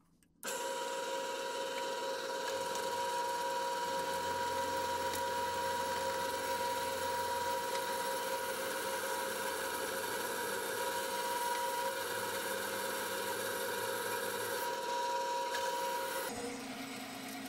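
Drill press running with a steady whine while a twist bit cuts into steel plate. About a second before the end the whine steps down to a lower hum.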